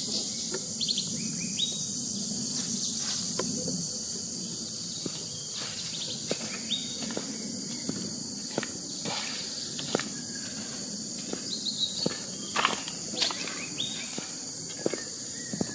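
Steady high-pitched drone of tropical insects, with footsteps crunching on grass and dry leaves as scattered clicks, and a few short rising bird chirps.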